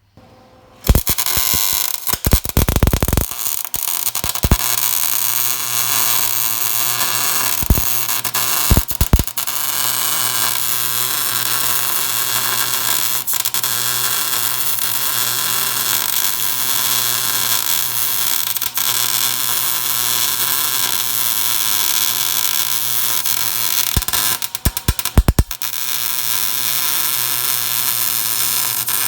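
Arc welding a patch plate onto a rusted truck frame: a steady crackling sizzle that starts about a second in, with a few short breaks and sharp pops, mostly near the start and again near the end.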